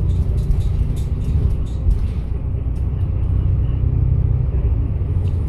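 Double-decker bus running along a city road, heard from inside the cabin: a steady low engine and road rumble, with a few light rattles and clicks in the first couple of seconds.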